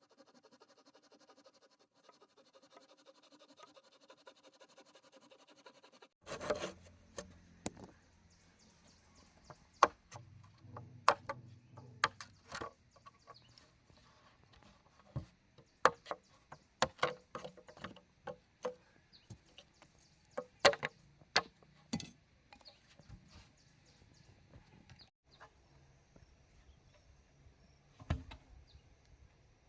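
Bamboo being worked by hand, knocked and chopped. Irregular sharp knocks begin about six seconds in, after a very faint stretch.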